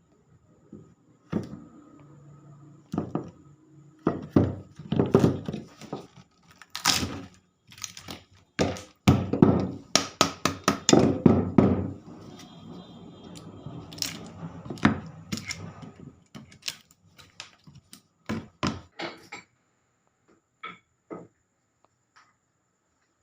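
Irregular knocks and thuds of hand work on a wooden table, with two denser stretches of rapid knocking and rubbing in the first half. Only a few faint taps remain near the end.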